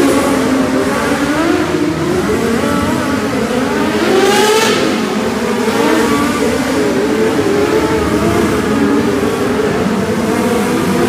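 Several small single-cylinder race-car engines running together, their pitches rising and falling as they rev, with one revving sharply high about four and a half seconds in.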